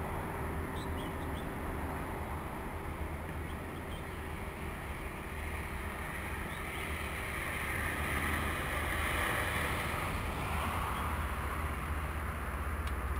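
Steady low rumble of wind on the microphone, with road traffic noise swelling in the middle and fading again.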